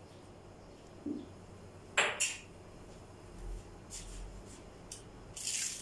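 Dishes and cutlery handled on a kitchen counter: a sharp double clink about two seconds in, with a softer knock before it and lighter clicks and taps after.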